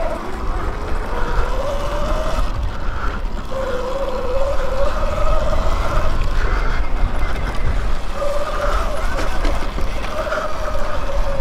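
Electric dirt bike motor whining, its pitch slowly rising and falling with speed, over heavy wind rumble on the microphone.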